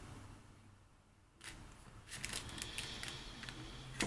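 A few faint clicks and light handling noises, after a moment of near silence.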